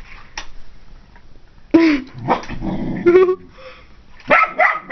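A dog barking several times in short bursts, starting a little under two seconds in.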